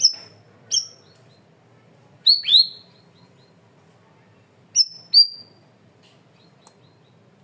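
Cucak rawis (bayeman) songbird giving short, sharp whistled calls, each dropping quickly in pitch. They come singly or in quick pairs, with the loudest pair a little over two seconds in and another about five seconds in.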